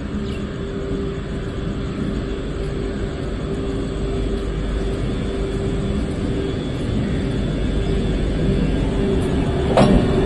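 Electric goods locomotive approaching slowly and drawing alongside: a steady mechanical hum with a constant whine, growing louder as it nears, and a sharp clank near the end.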